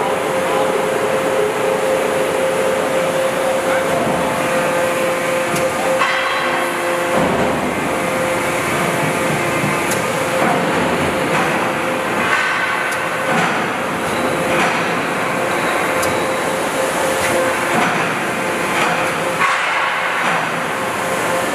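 Hydraulic static pile driver running under test: its hydraulic power unit gives a steady whine over loud, even machine noise, with scattered metallic knocks as the long and short walking boats are operated to check that they move without blockage.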